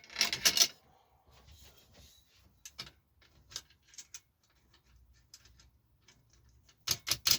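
Metal clinking and tapping as a motorcycle rear shock absorber is fitted and bolted into a steel spring-compressor tool. There is a quick run of sharp clicks at the start, scattered light ticks, then a cluster of louder clanks near the end.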